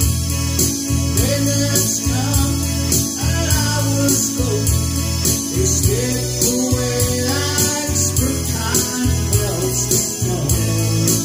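Music: a song with a singing voice over a steady beat, the voice coming in about two seconds in.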